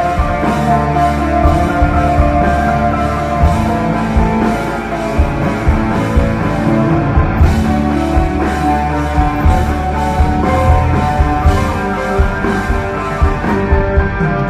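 Rock band playing live, an instrumental passage with no vocals: guitar over a steady beat.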